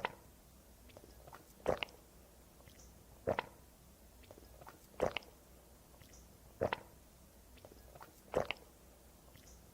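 A woman gulping water, six swallows evenly spaced about every second and a half or so, each a short double gulp.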